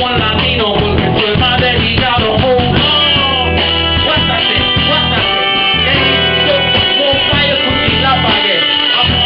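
Salsa band playing live: a vocalist sings into a microphone over violin, trombone and trumpet, with long held notes from about three seconds in.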